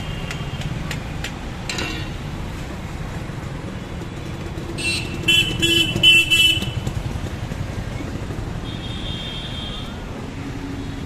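Steady low rumble of road traffic. From about five seconds in, a loud vehicle horn honks for about a second and a half in quick pulses. A fainter, shorter high tone follows later.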